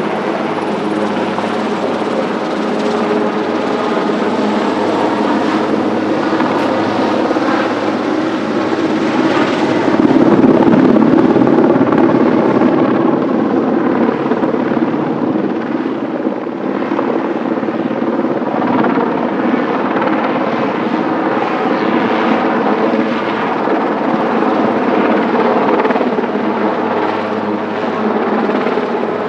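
Eurocopter AS332 Super Puma twin-turbine helicopter hovering close overhead, its main rotor and turbines running steadily, louder for a few seconds about ten seconds in.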